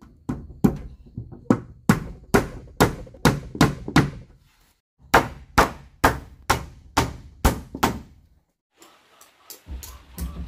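Hammer blows on wood, a little over two a second, in two runs with a pause of about a second between them, then lighter taps and a few more blows near the end.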